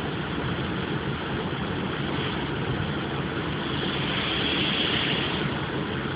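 Automatic car wash running, heard from inside the car's cabin: a steady rumble and hiss, with a brighter hiss swelling about four seconds in and fading away again.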